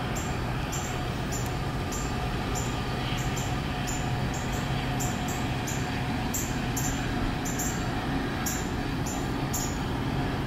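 Diesel commuter train pulling away along the track, a steady low rumble of the locomotive engine and rolling wheels with a faint steady tone above it.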